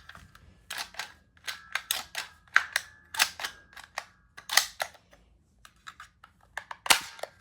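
Toy gun's mechanism clicking and snapping over and over at an irregular pace, with a faint ringing tone under the clicks in the first half. The clicks go quieter for a moment, and the loudest snap comes near the end.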